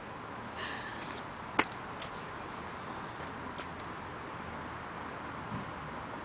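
Quiet room tone with a single sharp click about one and a half seconds in and a couple of short, soft hisses just before it.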